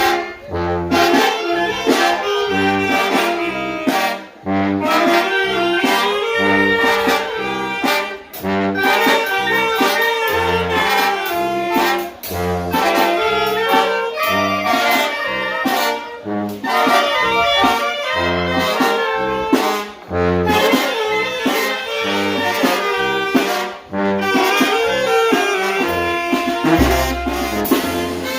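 Mexican banda (brass band) playing live: saxophones, trumpets and trombones carry the tune over low bass notes on a steady beat.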